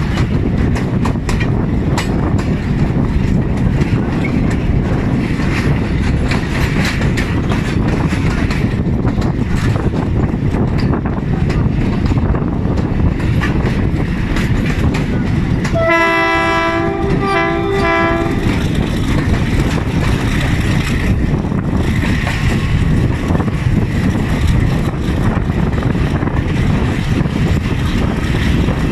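Pakistan Railways GRU-20 diesel-electric locomotive working hard as it pulls a passenger train away, heard from the leading coach: steady engine and wind noise with wheels clattering over the rails. About sixteen seconds in, the locomotive's horn sounds in a few short two-tone blasts over about two seconds.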